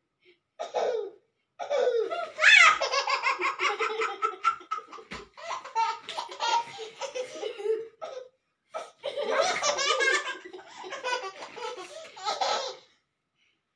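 Hearty human laughter in repeated pulsing bursts, with two short pauses, breaking off near the end.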